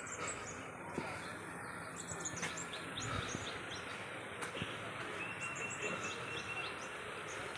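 Small birds chirping with many short high calls over a steady outdoor background hiss, and a quick run of about eight identical short notes about five seconds in.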